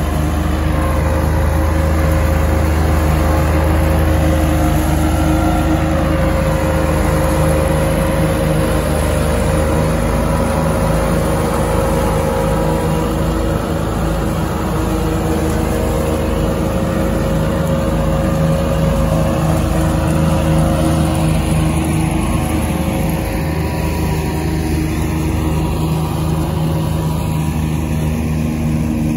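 Farm tractor engine running steadily under load, powering a tractor-pulled forage harvester that chops standing grass and blows it into a trailing wagon: a continuous low engine drone with a constant whirring rush from the chopper.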